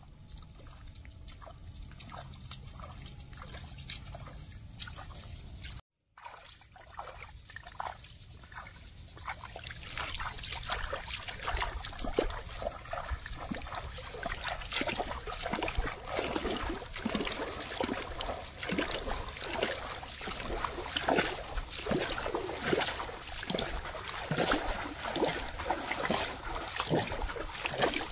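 Bare feet splashing and sloshing through shallow water and mud, step after step. The splashing grows louder and busier after a break about six seconds in.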